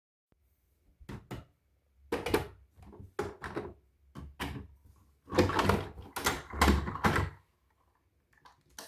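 A run of irregular knocks and thumps, spaced unevenly over several seconds, like objects being handled and set down.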